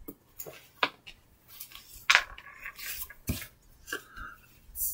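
Several light clicks and knocks from small props being handled, about a second apart.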